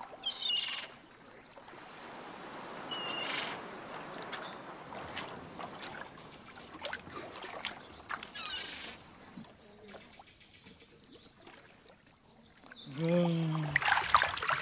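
Water lapping and splashing at a pool's surface as a hand dips and stirs in it, with scattered small splashes and drips. Two short high bird calls come near the start.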